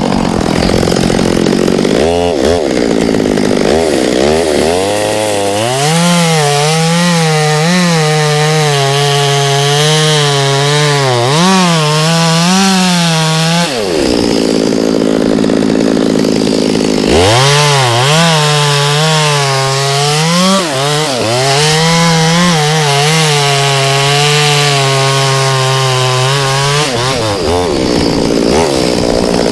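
Two-stroke chainsaw held at full throttle cutting through wood, its engine pitch wavering under the load. Around halfway it drops to idle for a few seconds, then revs back up for a second long cut and eases off near the end.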